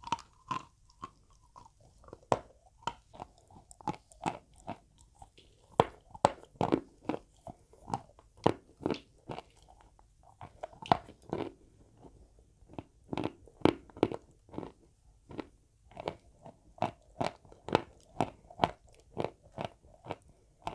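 Close-up biting and chewing of small pieces of dry white chalk: sharp, irregular dry crunches in quick runs, broken by a couple of brief pauses.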